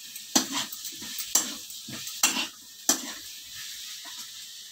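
Metal spatula scraping and knocking against a steel kadhai as potatoes and cauliflower in masala are stir-fried: four sharp strokes in the first three seconds, with a frying sizzle underneath that continues after the stirring stops.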